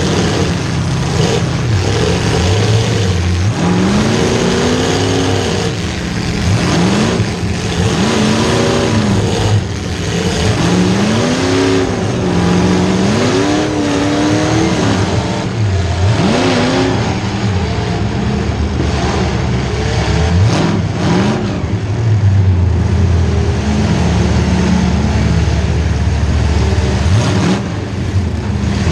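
Demolition derby car's small-block Chevy V8 revving up and falling back again and again, then running at a steadier speed for a while before revving again near the end, with scattered thumps and bangs over the engine.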